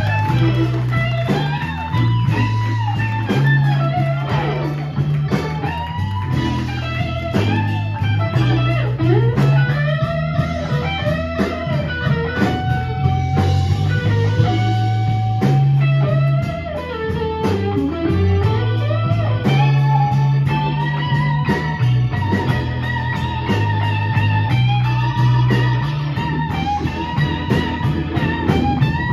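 Live blues band playing, led by a hollow-body electric guitar solo with bent, sliding notes, over a walking bass line and drums. In the second half the guitar holds long high notes with vibrato.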